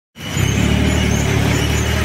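John Deere 4x4 tractor's diesel engine running steadily under load as its front loader lifts a bucket of gravel, starting suddenly just after the first moment.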